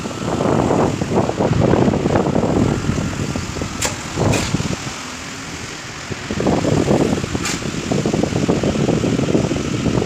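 Moving air buffeting the microphone: an uneven, gusting rumble that dips briefly in the middle, with a few sharp clicks.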